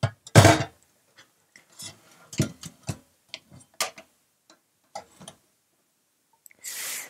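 Cookware clattering at the kitchen sink as blanched cauliflower is drained: a loud clatter about half a second in, then scattered knocks and clicks of pot and colander, and a short hiss near the end.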